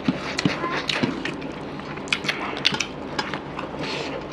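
Eating by hand from steel plates: many short clicks and squelches of fingers kneading rice and curry against the metal, with mouth sounds of chewing.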